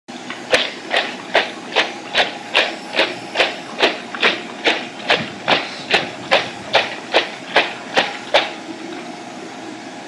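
Rubber galoshes stepping in a deep puddle: a quick, even run of about twenty splashing steps, a little over two a second, that stops about eight seconds in.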